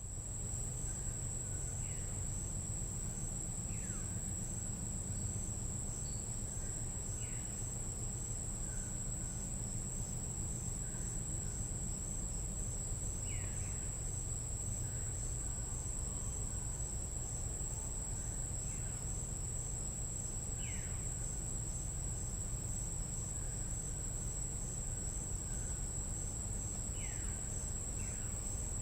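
Tropical jungle at night: a steady high-pitched trill of night insects, with short downward-sliding calls of an unidentified animal, perhaps a frog or bird, repeating every few seconds over a low steady rumble.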